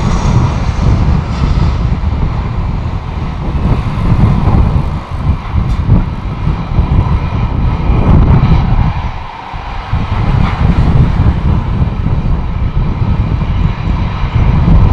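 Airbus A320 jet airliner arriving: a loud engine rumble that swells and fades unevenly, with a brief dip about nine seconds in.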